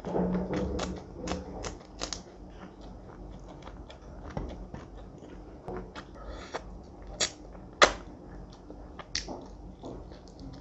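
Close-miked eating by hand: irregular crunchy bites and chewing with wet mouth clicks, the sharpest crunch about eight seconds in.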